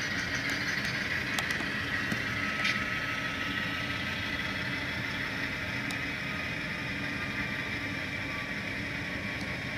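Diesel engine sound from a Soundtraxx Tsunami sound decoder in a Kato AC4400 model locomotive, a steady drone played through the model's small speaker.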